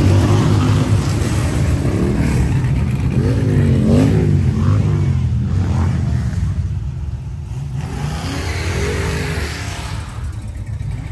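Mopar muscle car engine with a deep exhaust rumble, revving up and down as the car drives off. It gets quieter in the second half.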